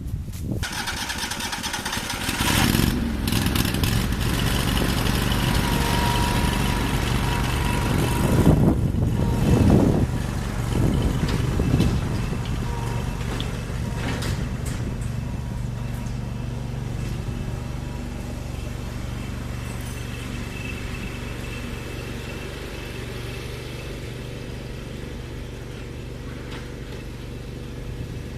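Ford 2N tractor's four-cylinder engine starting up suddenly, running unevenly with several louder surges for about the first twelve seconds, then settling into a steady run that slowly grows quieter.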